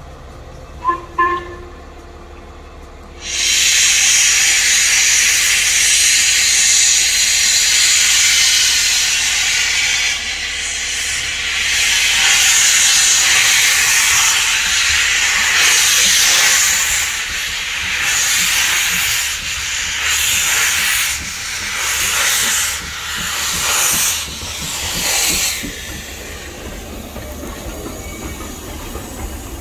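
LMS Black Five steam locomotive 45212 starting a train: two short whistle toots about a second in, then a sudden loud hiss of steam from the open cylinder drain cocks. Later the hiss pulses about once a second as the wheels begin to turn, and near the end it drops to a lower rumble as the locomotive rolls past.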